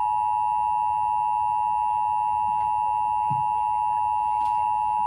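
Emergency Alert System attention signal played over broadcast radio: the steady two-tone EAS alert tone held unbroken, signalling that an emergency alert (here the national test) is about to be read.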